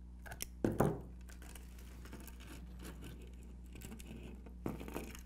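Small metallic clicks from split-ring pliers closing a steel split ring, then one sharper knock just under a second in, with light handling noises and a steady low hum behind.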